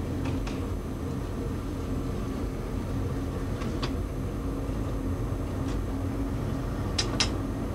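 Narrow-gauge train running: a steady low rumble with a held hum and a few sharp clicks, two close together near the end.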